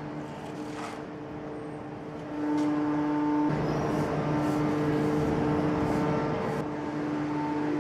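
Heavy forging machinery running with a steady pitched hum. About two and a half seconds in it grows louder, and from about three and a half seconds in a rushing noise with a few sharp knocks joins it, easing off near the end.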